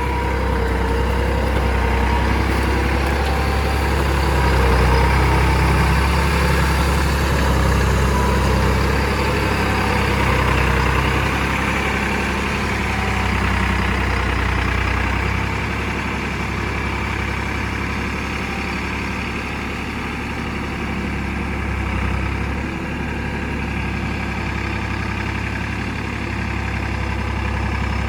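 A heavy vehicle engine running steadily, its level swelling a little in the first half and easing off later.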